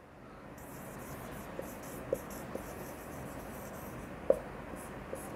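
Dry-erase marker writing on a whiteboard: a steady scratchy rub of the tip across the board, with a few brief louder squeaks between strokes.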